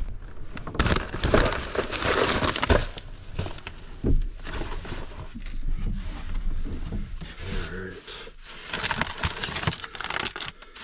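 Rummaging through food stored under a truck-bed sleeping platform: plastic bags and snack packaging rustle and crinkle in bursts, with a sharp knock of items being moved about four seconds in. Near the end a bag of pork rinds crinkles as it is handled.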